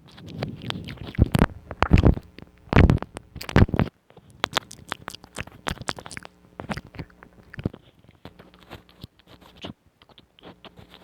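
Close-miked ASMR mouth sounds: wet clicks and smacks, louder and denser in the first four seconds, then softer and more scattered.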